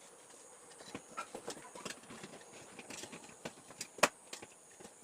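Scattered small clicks and knocks as a mini inverter's opened case and circuit board are handled and taken apart, with one sharp, loud click about four seconds in.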